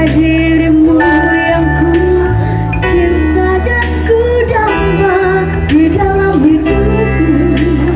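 A woman singing a slow melody into a microphone, with wavering held notes, over backing music with sustained bass and chords.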